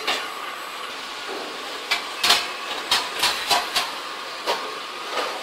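QH-9905 paper boat tray gluing machine running: a steady mechanical hiss and hum with a string of irregular sharp clacks, bunched about halfway through, as the rollers and forming mechanism work.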